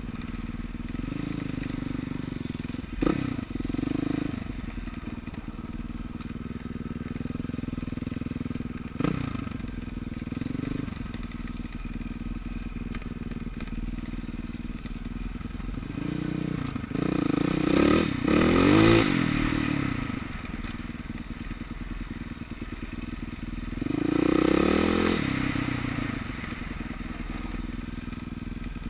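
KTM LC4 400 single-cylinder four-stroke dirt-bike engine under way off-road, its revs rising and falling in repeated bursts of throttle, loudest a little past halfway. Two sharp knocks come through early on the ride, about three and nine seconds in.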